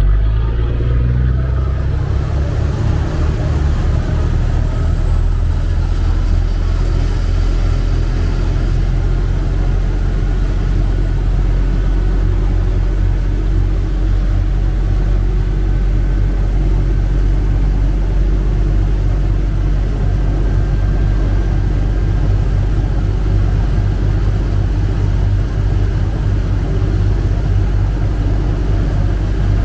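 Chao Phraya Express boat's diesel engine running under way: a loud, steady low rumble.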